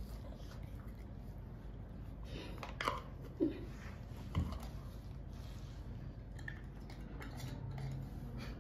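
Filled glass pickle jars being picked up and set down on a carpeted floor, giving a few soft knocks and clinks about three and four seconds in, over a steady low hum.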